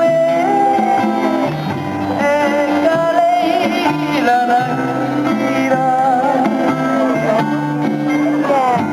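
Music with guitar accompaniment and a held melody line whose notes waver and glide in pitch.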